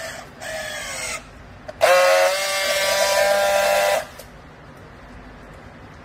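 Handheld powered strapping tool running on polypropylene baling strap: a short motor whine that falls in pitch, then a louder steady whine for about two seconds that cuts off suddenly.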